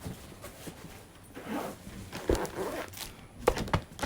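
Packaging and clothing being handled: rasping rustles through the middle, then two sharp knocks near the end.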